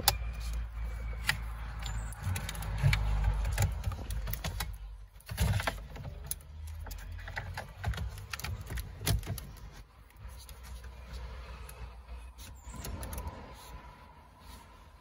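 Hands working on a car stereo's wiring: scattered clicks and knocks of plastic connectors and cables, with rumbling handling noise, busiest in the first few seconds and with a sharper knock about five and a half seconds in.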